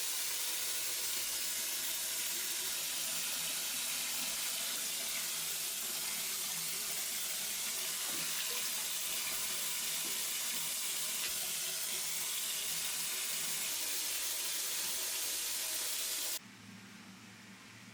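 Water running steadily from a tap, a continuous rushing splash that cuts off abruptly near the end.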